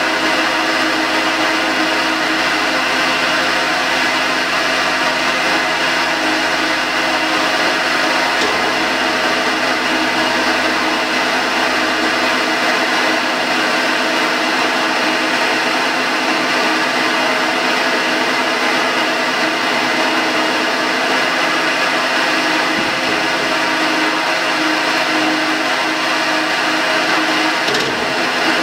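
Blanchard 18-36 vertical rotary surface grinder with a 25-horsepower drive, running under power: a steady motor hum with several held tones over a hiss. A faint deep hum drops away about twelve seconds in.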